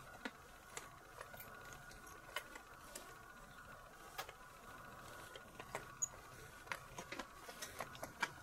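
Sticky lint roller rolled over a cat's fur, giving faint, irregular crackles and ticks as the adhesive sheet pulls at the hair, over a faint steady high hum.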